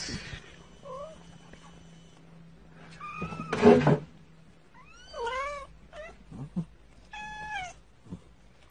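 A cat mewing: about five short, high calls that rise and fall in pitch, the loudest about three and a half seconds in, over a faint steady hum.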